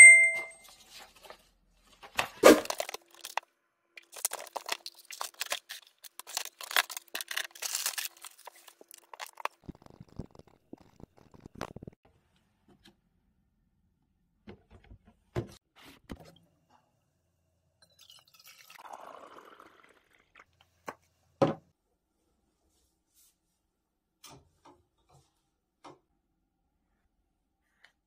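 Desk handling sounds: a short clink at the start, then paper handouts being shuffled and rustled for several seconds, with a few knocks of small objects set down on the desk, the sharpest about twenty seconds in.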